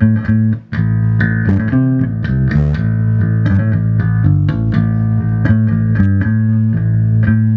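Birdsong Cortobass short-scale electric bass played on its neck humbucker pickup: a line of plucked notes, ending on a long held low note.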